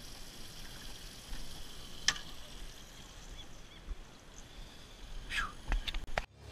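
Steady hiss of water and wind around a small fishing boat, with a sharp knock about two seconds in, then a short falling squeak and a few clicks near the end.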